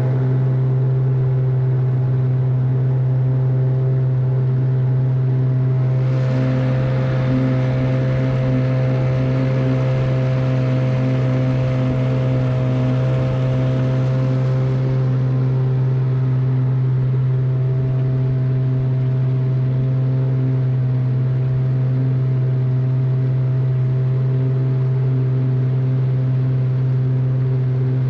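Boat motor running at a steady speed, a constant low hum with overtones. A rushing hiss rises over it from about six seconds in and fades by about fourteen seconds.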